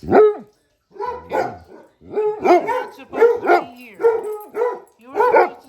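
Dogs barking, about a dozen short, high barks in quick runs, each one rising and falling in pitch.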